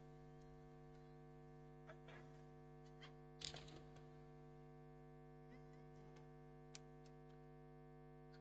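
Near silence: a steady electrical hum, with a few faint short taps about two, three and seven seconds in.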